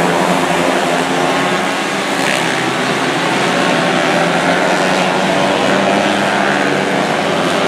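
A field of 125cc winged micro sprint cars racing together on a dirt oval, many small engines running hard at high revs at once in a loud, steady drone.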